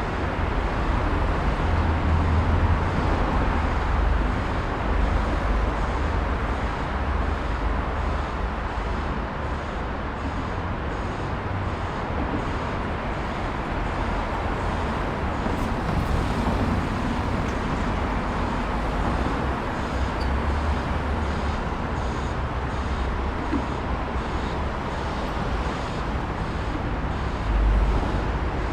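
Steady road traffic noise: a continuous wash of passing cars with a low rumble that swells and eases, and a brief louder low thump near the end.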